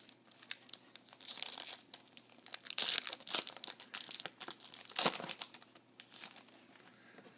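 Crinkling and tearing of a trading card pack's wrapper being torn open by hand, in irregular crackles with louder rips about three and five seconds in.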